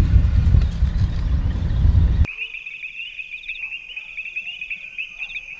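A loud low rumbling noise cuts off abruptly about two seconds in. It gives way to a quiet background of insects chirring: one steady high-pitched trill with rapid pulses and short faint warbles above it.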